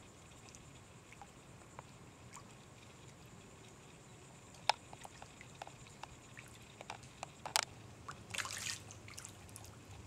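Hooked striped bass splashing at the water's surface: faint scattered drips and small splashes, with a short louder splash about eight seconds in.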